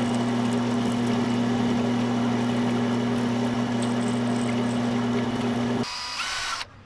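Bandsaw running with a steady hum as its blade cuts a notch through a fishing lure body. About six seconds in it stops abruptly, and a cordless drill briefly whirs up with a rising pitch.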